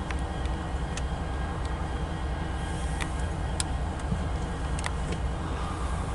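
Steady low rumble of a car idling, heard from inside the parked car with a window down, with a few sharp clicks at uneven moments.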